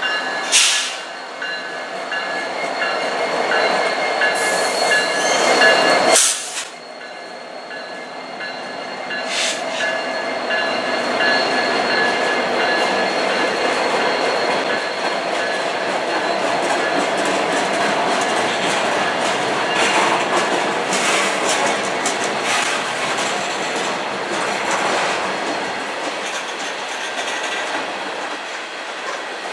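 CN diesel freight locomotive passing close by, its loud engine sound cutting off about six seconds in as it goes past. Freight cars follow, covered hoppers and tank cars, rolling by with a steady rumble of wheels on rail and scattered clicks over the rail joints.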